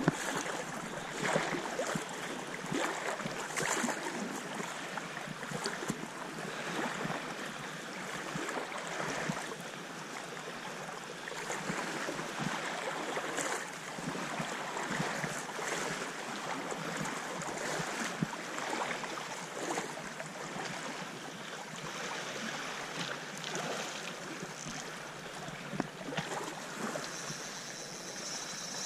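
Shallow lake water sloshing and lapping, with irregular splashes from someone wading through it.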